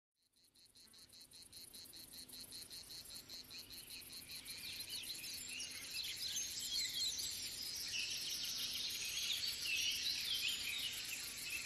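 Crickets chirping in a rapid, even pulse, fading in from silence, with a busy twittering of short rising and falling chirps building up over it after a few seconds.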